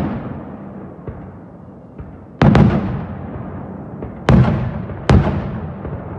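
Fireworks shells bursting in the sky: a double bang about two and a half seconds in, then two single bangs less than a second apart near the end, each trailing off in a long rumbling echo.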